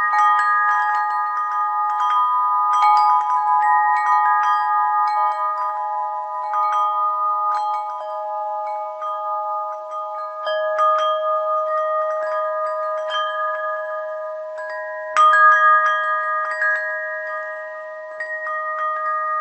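Bells chiming: many clear notes struck at irregular moments, overlapping and ringing on for several seconds each, with one louder strike about fifteen seconds in.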